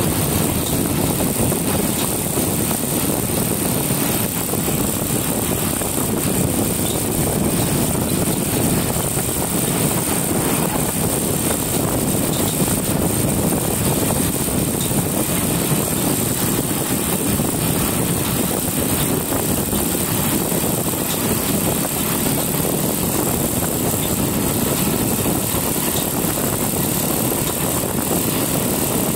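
Motorcycle riding at a steady speed: engine running under a steady rush of wind over the microphone.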